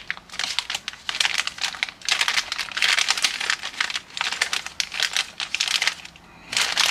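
Small plastic parts bags crinkling and rustling as they are shuffled through by hand, in irregular crackly bursts with a brief lull near the end.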